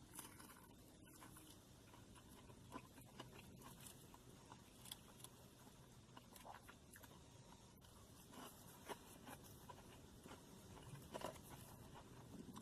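Near silence with faint, scattered small clicks and crunches of quiet chewing.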